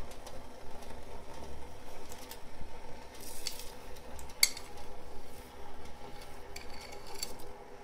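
Granulated sugar poured from a glass tumbler into a pot of water, a metal spoon scraping and clinking against the glass as it pushes the sugar out; one sharp clink about four and a half seconds in stands out.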